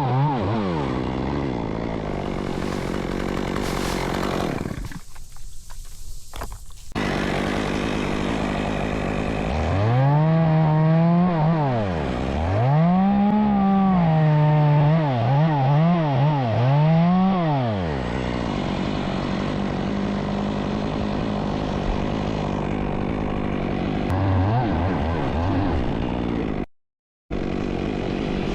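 Two-stroke chainsaw running and being revved up and down repeatedly, its pitch rising and falling with the throttle. The sound drops out for a moment near the end.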